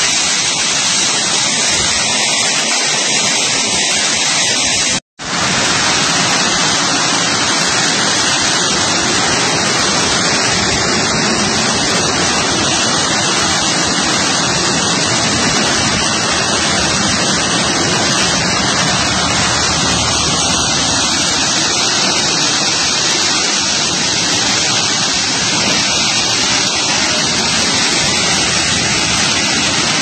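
Severe storm of strong wind and heavy driving rain, a loud steady rushing noise that breaks off for an instant about five seconds in.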